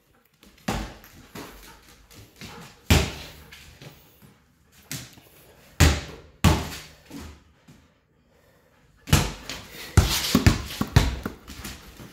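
A series of irregular thumps and knocks, a few scattered through the first half and several close together near the end.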